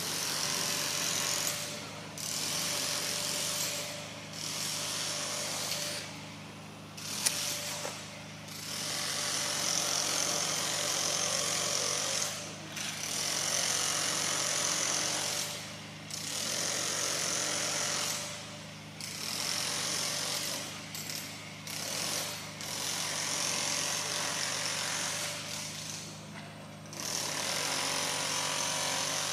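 Cicadas buzzing in repeated pulses of one to four seconds with short gaps between, over a steady low hum. A single sharp click about seven seconds in.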